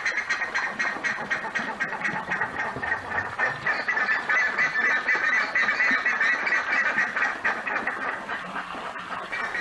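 Buff-necked ibises (curicaca) calling: a fast, unbroken series of repeated call notes.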